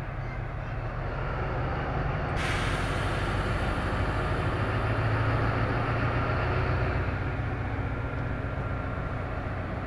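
ZCU-20 diesel-electric locomotive engine running with a steady low drone that swells a little in the middle. About two and a half seconds in, a sudden hiss starts and slowly fades.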